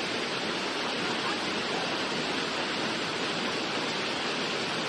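Floodwater rushing in a steady, even stream.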